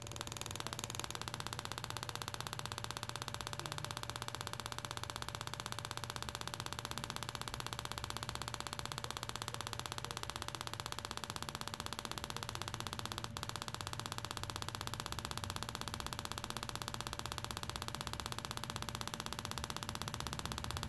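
A KTM 1190 Adventure stick ignition coil firing a spark plug over and over on a test bench: a steady, fast, even buzzing crackle of sparks. One sharp click about thirteen seconds in.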